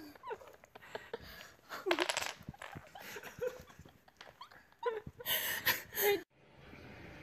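People laughing and exclaiming in short bursts, rising to a louder, shrill outburst near the end that breaks off suddenly.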